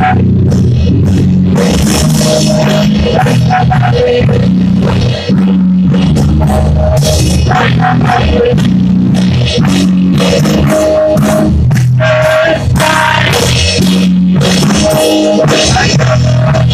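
Rock song played live on electric guitar with drums, a man singing over it.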